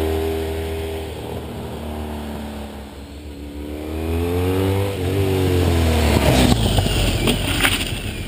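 Honda ST1300's V4 engine through aftermarket Staintune mufflers: the bike's note falls and fades as it rides away, then rises and grows louder as it comes back accelerating, with a brief dip in pitch about five seconds in. It passes close by, loudest from about six to almost eight seconds in.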